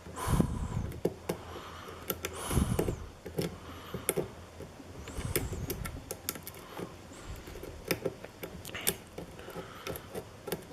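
Light metallic clicks and scrapes of a Gem hook pick working the pin tumblers of a Sargent lock against tension, irregular clicks as pins are lifted and set, with a few soft rustles of handling.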